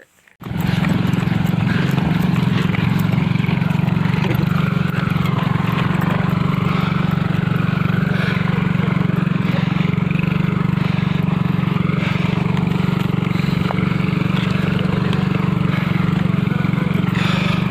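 Motorcycle engine running steadily close by; it sets in abruptly about half a second in and keeps an even, unchanging note throughout.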